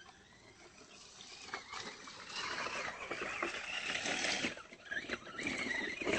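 Electric motor and gears of an Axial AX10 radio-controlled rock crawler whining, the pitch rising and falling with the throttle as it climbs over creek rocks, with clicks and scrapes from the tires and chassis. It starts faint and gets louder about two seconds in.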